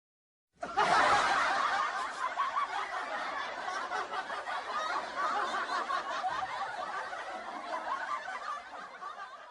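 A crowd laughing, a laugh-track sound effect: it starts suddenly just under a second in at full strength and slowly fades away.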